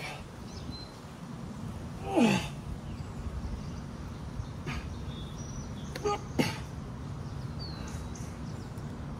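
A boulderer grunting and exhaling with effort while pulling through hard moves: one falling grunt about two seconds in and two shorter ones about six seconds in.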